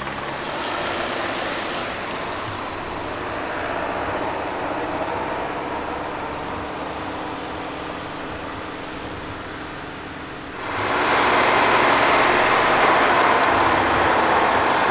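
Vintage vehicle engines running, a steady noisy rumble that jumps abruptly louder about ten and a half seconds in.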